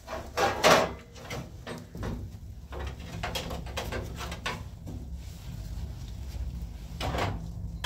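A few short knocks and bumps of people moving about a room, the loudest about half a second in, over a steady low hum.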